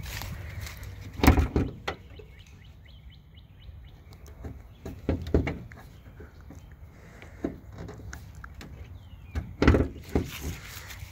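A few loud clunks and knocks from metal car parts being pulled and pushed on something that won't open, with a low background rumble and birds chirping faintly.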